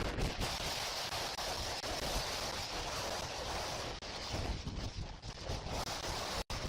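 Hurricane-force wind blowing hard over the microphone, a steady rushing noise that cuts out for an instant near the end.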